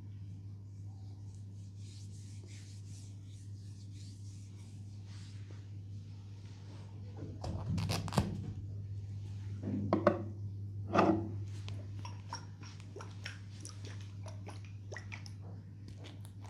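Oiled hands massaging a knee: soft rubbing at first, then sticky wet clicks and smacks, with the loudest few near the middle and a run of small clicks after. A steady low hum lies underneath.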